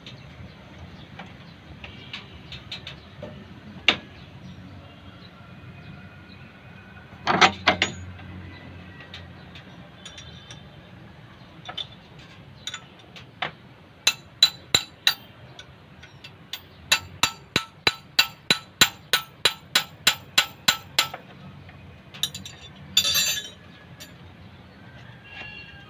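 Hand tools working on metal engine parts during an overhaul: sharp metallic clicks and taps, in quick even runs of about four a second in the second half, with a short louder clatter about seven seconds in and again near the end.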